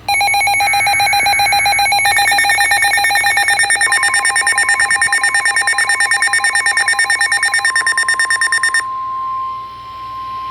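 NOAA Weather Radio emergency alert tones announcing a new warning. A loud, rapidly pulsing electronic alarm beep plays over a short data burst. About four seconds in, the steady 1050 Hz warning alarm tone joins, and it carries on alone after the pulsing stops near the end.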